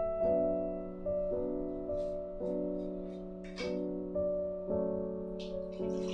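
Background music: soft solo piano with a new note or chord about every half-second to second, and a few faint clicks underneath.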